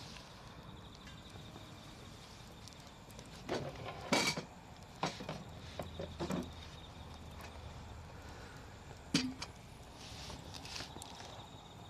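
Wood campfire crackling, with a cluster of sharp pops and snaps about four to six seconds in and one more loud snap about nine seconds in.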